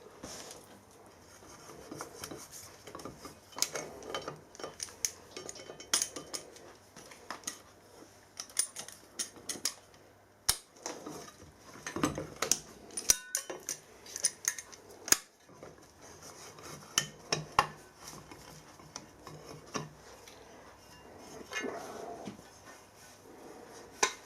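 Irregular light metallic clicks and clinks as the remains of a broken steel stud are picked and worked out of a threaded hole in aluminium. A low steady hum underneath stops about ten seconds in.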